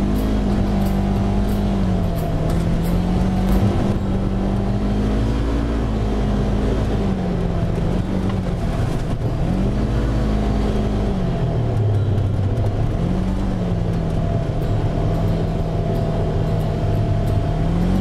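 Polaris RZR side-by-side's engine running under way, its pitch rising and falling several times as it speeds up and eases off, dipping lowest about two-thirds of the way in, over a steady rush of tyre and trail noise on a wet dirt track.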